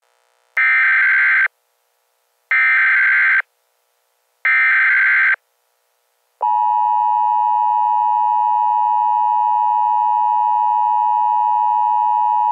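Emergency Alert System signal: three short bursts of digital header data, each just under a second and about a second apart, then the steady two-tone EAS attention signal, which starts about six seconds in and keeps going.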